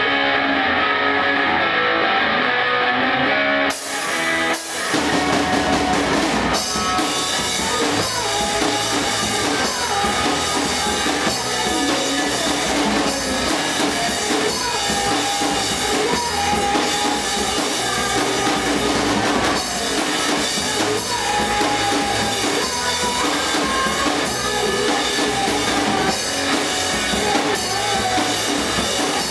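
Rock band playing live in a room: drum kit and electric guitar. The sound is thinner at first, dips briefly about four seconds in, then the full band comes in.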